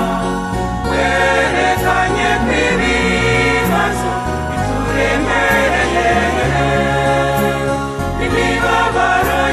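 Music from a Kinyarwanda Catholic hymn to the Virgin Mary, with a bass line that steps from note to note.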